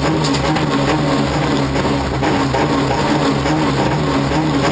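Rallycross Toyota Corolla's engine running at fairly steady revs, rising and falling slightly, heard from inside the stripped cabin along with road noise.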